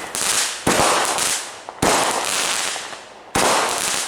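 Consumer fireworks going off: three sharp bangs roughly a second and a half apart, each dying away over about a second.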